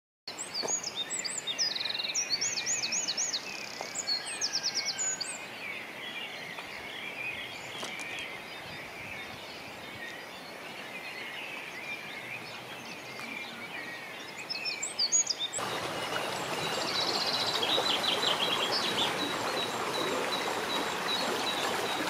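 Songbirds in a spring dawn chorus, several singing at once with repeated high rising-and-falling phrases and chirps. About fifteen seconds in, the steady rushing of a river comes in under the birdsong, with a bird trilling over it.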